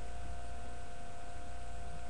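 Steady background hum and hiss: a low rumble with a few fixed tones above it, unchanging throughout, with no other sound.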